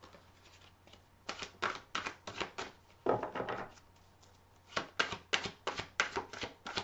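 A deck of tarot cards being shuffled by hand: a run of quick card clicks and slaps, a longer swish of cards sliding about halfway through, then a faster run of clicks near the end.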